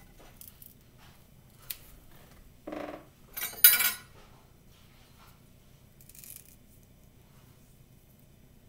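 Light kitchen handling sounds: small clicks and rustles as bananas are pulled from a bunch and put down on the stovetop. About three and a half seconds in there is a short, sharp clatter, the loudest sound, and a soft rustle follows around six seconds in.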